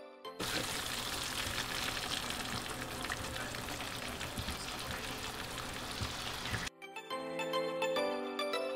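Chicken and mushrooms in cream sauce sizzling in a hot pan, with a wooden spatula stirring through it. The sizzling cuts off suddenly about six and a half seconds in, and background music takes over.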